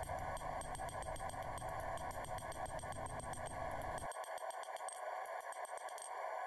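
Hand hammer striking a glowing 1070 steel sword blade on an anvil, a quick run of light strikes over a steady background hiss; the low rumble drops away about four seconds in.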